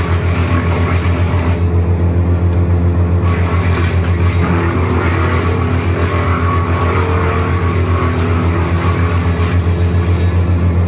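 Wood chipper's engine running steadily with a low, pulsing drone.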